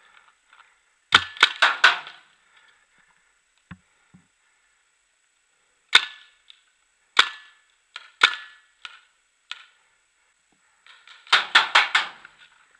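Paintball markers firing: a quick string of about five shots about a second in, single shots roughly a second apart through the middle, and a rapid burst of shots near the end.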